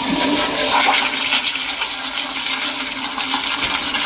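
Kohler toilet flushing: a loud, steady rush of water with a low hum underneath.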